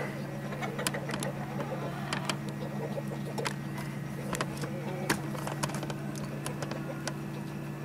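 Scattered sharp clicks and ticks, a few a second and irregular, over a steady low hum.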